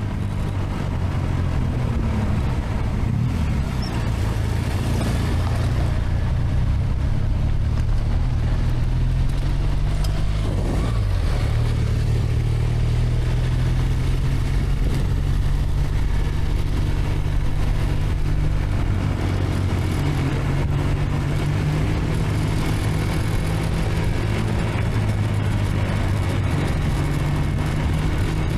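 BMW GS motorcycle engine running under way, its note shifting up and down a few times, under a steady rush of wind.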